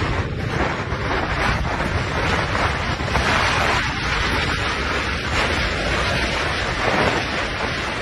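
Blizzard wind blowing hard across the microphone: a steady rushing noise that swells and eases slightly in gusts.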